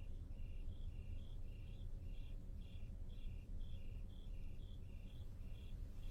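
Crickets chirping in a steady rhythm, high and low chirps alternating about four times a second, over a faint low hum.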